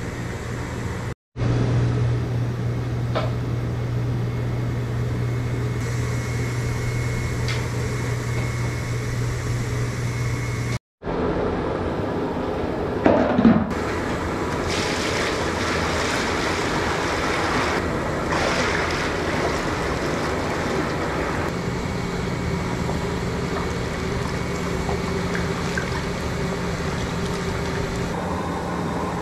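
Steady roar of a gas burner and steam under a large steamer, with a low hum. A short louder scrape and pour comes about halfway through as rice is tipped from a bucket onto the steamer cloth. The sound drops out twice for an instant.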